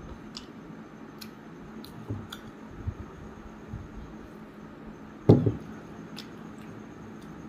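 Close-up eating sounds: fingers squishing and mixing rice and curry on a plate while chewing, with small wet clicks. About five seconds in, a single loud knock as a drinking glass is set down on the wooden table.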